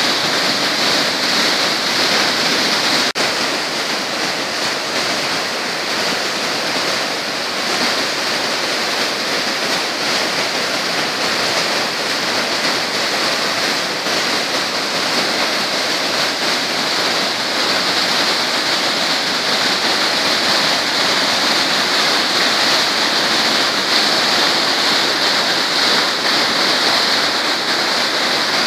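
River in flood: fast brown water rushing and churning through rapids, a steady, unbroken rush of whitewater.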